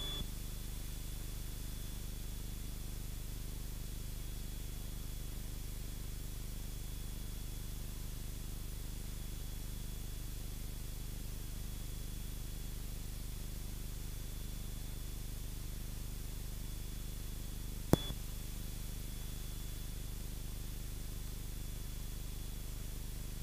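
Faint steady drone of the Cessna 172's engine and propeller heard through the headset intercom feed, with a faint steady high whine over it. A single sharp click comes about eighteen seconds in.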